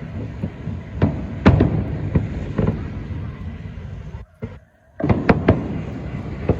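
Aerial fireworks bursting one after another, sharp bangs over a continuous low rumble. The sound cuts out briefly about four and a half seconds in, then several more bangs follow in quick succession.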